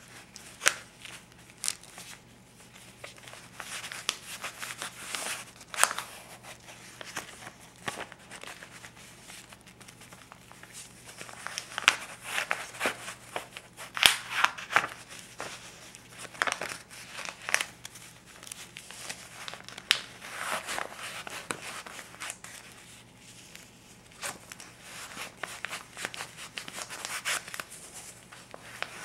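A stack of US paper bills ($50s and $20s) being handled close up: crinkling, rubbing and flipping at an irregular pace, with sharp crisp snaps now and then.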